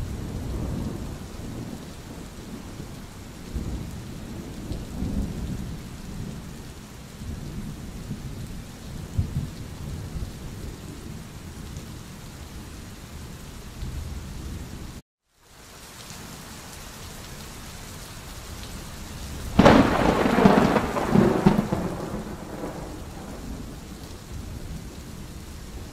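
Steady rain with low rolling thunder. About halfway through the sound cuts out for half a second. Near twenty seconds in a sudden loud thunderclap breaks and rumbles away over a few seconds.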